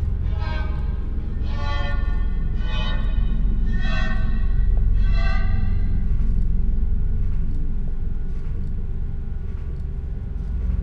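Dark, ominous film score: a steady low drone with a pitched tone repeating about once a second, which stops about halfway through and leaves the drone with faint ticking.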